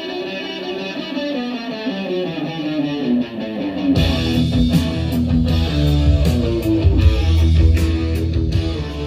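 Music played through a hi-fi system's loudspeakers: a plucked guitar line, then about four seconds in a full band with heavy bass and drums comes in, getting louder.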